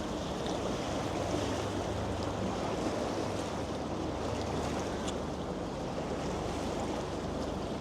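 High, fast-flowing floodwater of the Seine rushing past the embankment: a steady, even rush of water.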